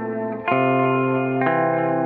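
Electric guitar with chorus and distortion effects playing sustained chords, changing chord about half a second in and again near the end.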